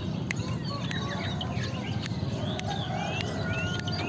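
Many caged birds chirping and whistling together, with short rising whistles overlapping, over a steady low background hum and a few sharp ticks.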